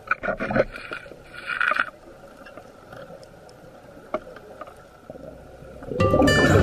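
Scuba diver breathing out through a regulator underwater: two bursts of exhaled bubbles in the first two seconds, then quieter water noise with a single click about four seconds in. Music starts loudly near the end.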